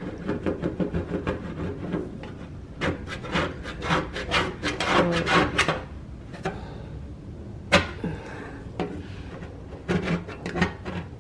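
Plastic scraper scraping stubborn baked-on grime off a black gas stovetop, which is only partly coming off. Quick scraping strokes come in runs, pause briefly past the middle, and there is one sharp tap near the middle.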